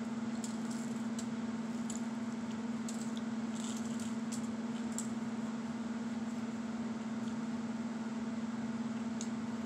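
Crunchy toasted bread being bitten and chewed close to the microphone: a run of crisp crackles over the first five seconds and one more near the end. A steady low electrical hum runs underneath throughout.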